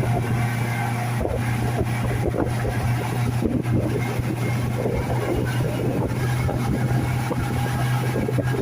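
Speedboat engine running steadily, a low even hum under rushing noise.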